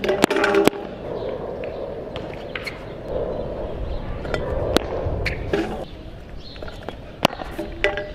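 Stunt scooter wheels rolling on a hard court, with sharp clacks as the scooter's deck, pegs and bars knock on the ground during flatland tricks. There is a quick cluster of clacks about the first second and single ones later on.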